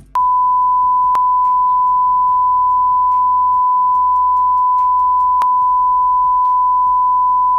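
Censor bleep: one long, steady, high-pitched beep tone that starts just after the beginning and holds unbroken throughout, masking a stretch of angry swearing.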